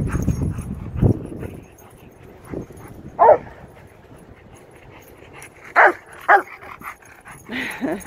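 A dog yelping in short, high calls, about four times in the second half, each call dropping in pitch. A low rumbling noise fills the first second or so.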